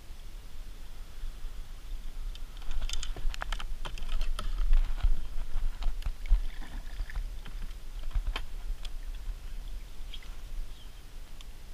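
Irregular clicking and tapping from a fishing rod and reel being worked and reeled in a plastic kayak, thickest a few seconds in and thinning out near the end, over a low rumble.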